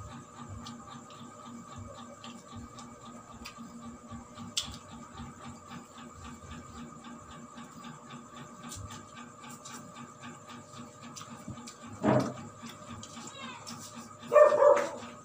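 Quiet dinner-table eating sounds: small clicks and smacks of chewing and handling food over a steady faint hum. A single thump about twelve seconds in, then a short, loud, high yelp near the end.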